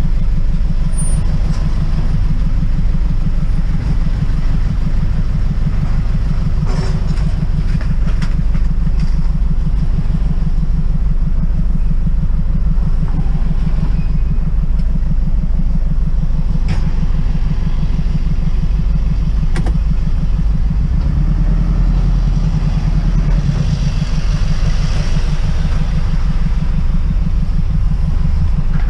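Truck engine running with a steady, loud low rumble of fast firing pulses, rising slightly about two-thirds of the way through as it pulls ahead.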